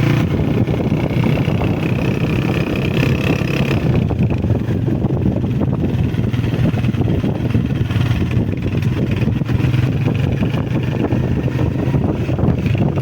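Motorcycle riding along: a Honda CG125's single-cylinder four-stroke engine running under way, mixed with heavy wind buffeting on the microphone.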